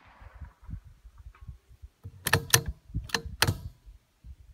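The bolt of a Savage Mark II FV-SR bolt-action .22 LR rifle being worked after a shot: four sharp metallic clicks in two quick pairs, about half a second apart, as the bolt is opened and closed. The ring of the previous shot fades out at the start, and there is a faint tick a little over a second in.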